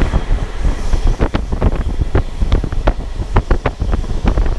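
Passenger train running, heard from inside: a steady low rumble with many irregular clicks and rattles, and wind buffeting the microphone.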